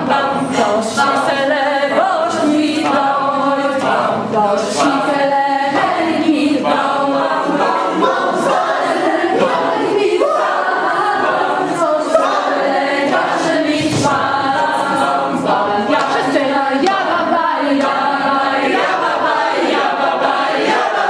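A large group of teenagers singing together without instruments, choir-style, in a continuous stretch of song.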